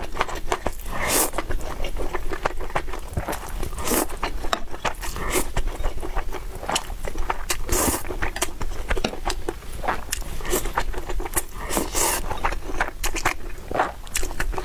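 Close-miked eating: chewing, with dense, irregular short wet clicks and crunches.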